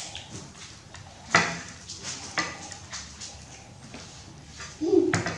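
Corn cobs and a china plate knocking and clicking on a wooden table as they are handled, a few separate sharp knocks, the loudest about a second and a half in. Near the end comes a short low steady tone with another knock.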